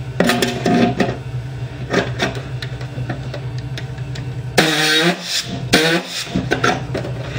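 Pneumatic air body saw running, its reciprocating blade cutting into the steel fender of a riding mower with a steady buzz and harsh scraping. The buzz drops out briefly twice about two-thirds of the way through as the saw stops and starts again.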